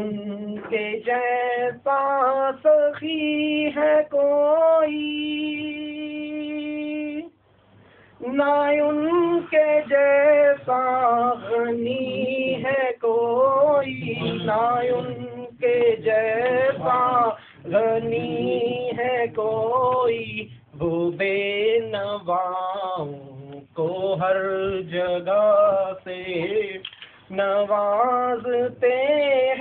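A solo voice singing a naat, a devotional song in praise of the Prophet, with ornamented, wavering lines, one long held note about five seconds in and a short breath break soon after.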